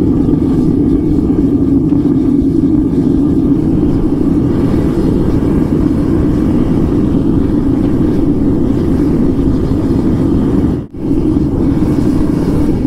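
Melting furnace burner running at full blast and full temperature: a loud, steady rushing rumble, strongest low down. It drops out for a moment about eleven seconds in.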